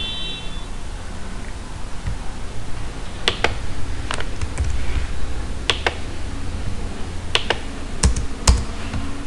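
Computer keyboard keys pressed in a slow, scattered way: about ten separate clicks, some in quick pairs, starting about three seconds in, over a steady low hum.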